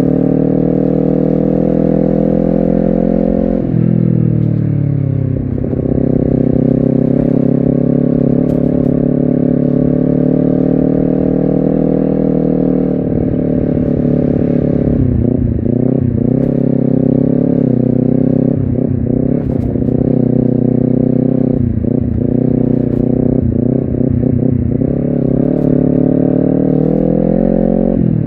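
Honda CBR250RR engine and exhaust under way at a steady pitch. About four seconds in, the revs drop sharply and then climb back. In the second half there is a run of quick dips in revs.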